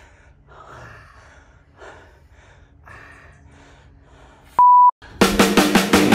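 Faint pained breaths and groans, about one a second, from a rider kneeling hurt after a mountain bike crash. About four and a half seconds in, a short loud censor bleep, then heavy rock guitar music starts.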